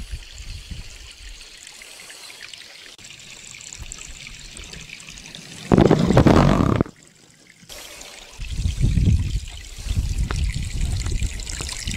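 Water from sump pumps rushing and trickling through a PVC piling and a steel jetting pipe as they jet down into the lake-bottom mud. About six seconds in there is a louder rush lasting about a second. It cuts off suddenly into a brief near-silence, and low rumbling follows.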